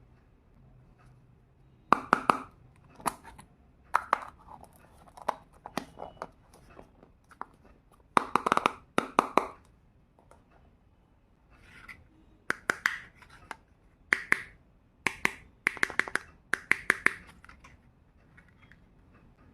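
Small plastic toy kitchen pieces and their packaging being handled: irregular clusters of sharp clicks and taps mixed with short crinkling rustles, with quiet gaps between.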